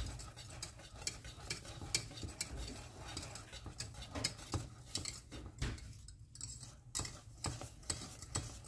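Wire whisk stirring thick semolina milk pudding in a stainless steel saucepan, its wires scraping and clicking against the pan in quick, irregular taps.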